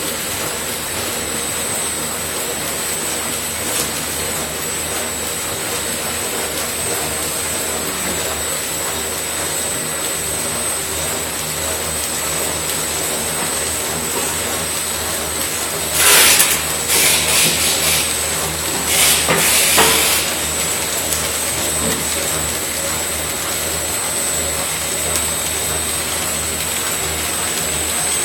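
Automatic corrugated-box folder-gluer running: a steady mechanical drone with a constant high whine. A few loud hissing bursts come about two-thirds of the way through.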